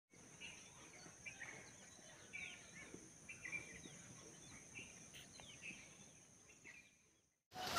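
Faint birds chirping and calling in short, scattered notes over a thin, steady high whine. Right at the end the sound cuts out and heavy rain begins loudly.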